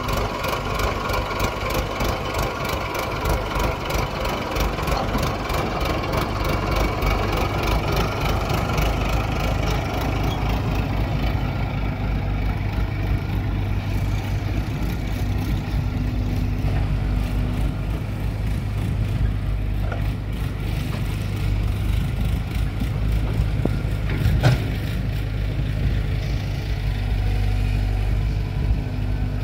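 Mahindra tractor's diesel engine idling close by with a steady low chugging, and a single sharp knock about 24 seconds in.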